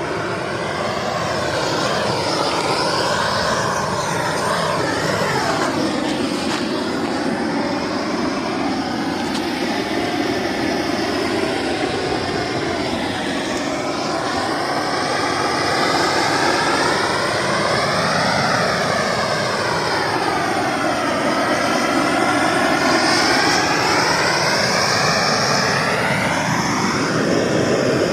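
A woodworking power tool running continuously, its whine and noise sweeping slowly up and down in pitch every few seconds.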